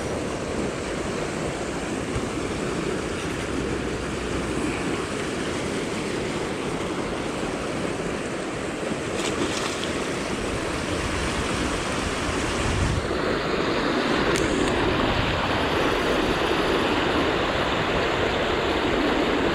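River water rushing steadily, an even noisy flow that gets a little louder about two-thirds of the way through.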